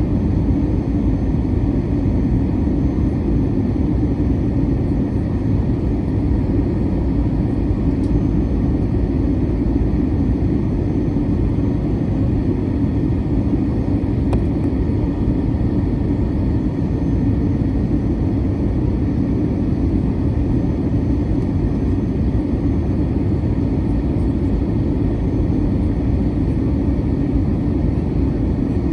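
Steady cabin noise inside an Airbus A321-200 in flight: a constant low rumble of engines and airflow around the fuselage, with no change in level.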